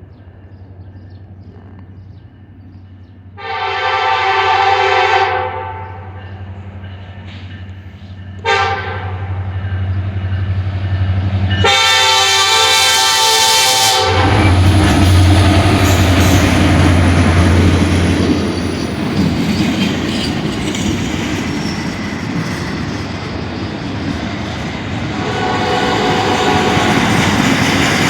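A train sounding its horn: a long blast, a short one, then another long one. A loud, steady rushing rumble follows as it passes, with a fainter horn sound near the end.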